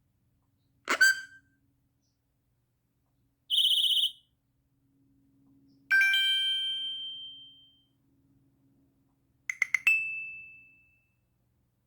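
Cell phone notification tones played one after another. A brief chime comes about a second in, then a short buzzy beep, then a bell-like tone that rings out for about two seconds, and near the end a quick run of strikes that ends in a fading ringing tone.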